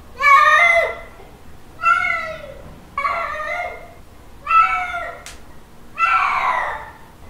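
Domestic cat giving drawn-out mating-call meows, five in a row about a second and a half apart, each falling in pitch at its end, the last one hoarser. A short sharp click comes just after the fourth call.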